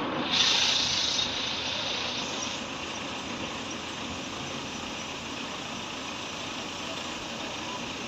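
Tipper truck running with its bed raised as it dumps a load of sand. A hissing rush is loudest for the first two seconds or so, then settles into a steady noise.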